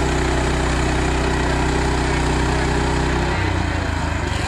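Portable sawmill's gas engine running steadily while the saw head is pushed along a log. About three and a half seconds in the engine note drops and turns uneven.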